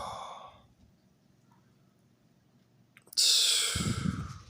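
A person breathing out heavily close to the microphone, like a sigh: once fading away at the start, and again about three seconds in, with quiet room tone between.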